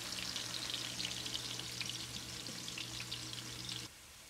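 Sliced red onions sizzling and crackling as they fry in hot ghee and oil in a stainless steel pot, over a steady low hum. The sound cuts off abruptly near the end, leaving faint room tone.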